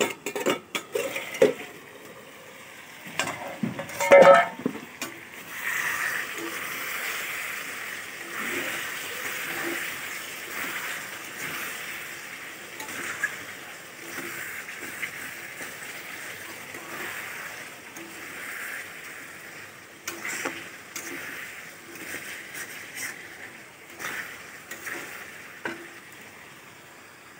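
Metal clatter of a steel kadai and its lid, with a loud ringing clang about four seconds in, then food sizzling in hot oil in the kadai on a gas burner, stirred with a metal spatula that knocks and scrapes against the pan now and then.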